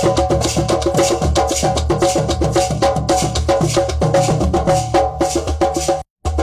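Drum circle: several hand drums played together in a fast, even rhythm, with a sharper, higher clicking percussion over the deep drum strokes. The sound cuts out for a split second near the end.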